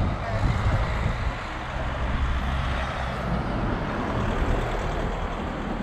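Steady road-traffic noise with wind buffeting the microphone, an uneven low rumble under an even hiss.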